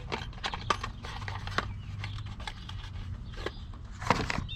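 Loose car parts being handled and set down, giving scattered clicks, clinks and knocks, with a louder knock near the end.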